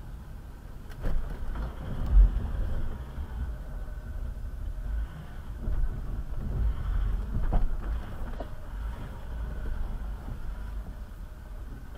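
Land Rover Discovery 4 crawling over deep ruts at walking pace, heard from inside the cabin: a low engine rumble with scattered knocks and thumps from the body and suspension. The loudest thump comes about two seconds in.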